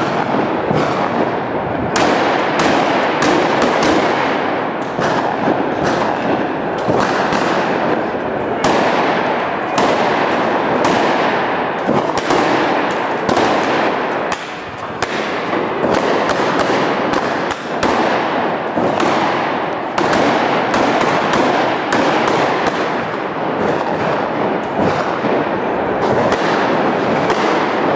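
A rapid, irregular string of firecracker bangs, several a second without a pause, echoing off the buildings.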